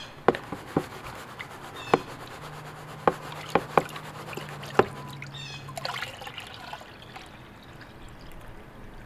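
Water trickling and sloshing in a gold pan as shredded connector debris is panned, with scattered sharp light clicks, about seven in the first half.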